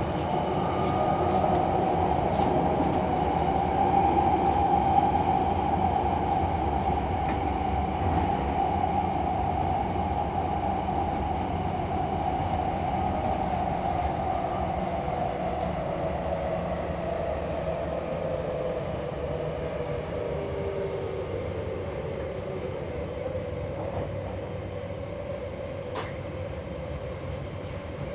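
Tokyo Metro 10000 series train running, heard from inside the passenger car: a steady rumble of wheels and motors with a strong tone that slowly falls in pitch. The sound grows gradually quieter, as when the train is slowing.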